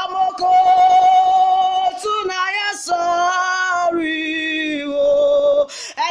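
A woman singing a slow worship song, holding long notes of a second or more with a slight waver.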